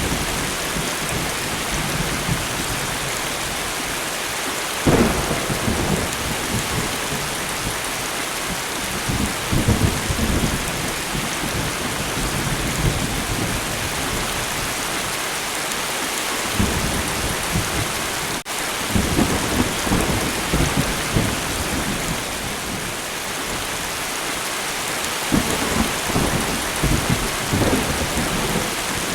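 Steady light rain with repeated rolls of thunder: a sharp clap about five seconds in, the loudest, followed by several lower rumbles that swell and fade.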